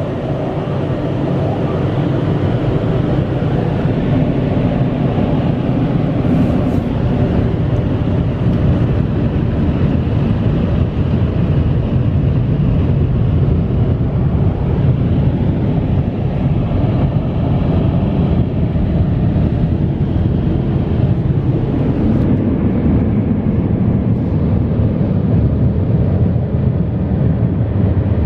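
Car wash air dryer blowers running, a loud steady rush of air heard from inside the car's cabin, growing a little louder over the first couple of seconds.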